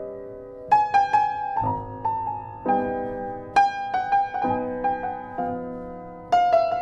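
Solo piano music, a slow melody of single notes over held chords.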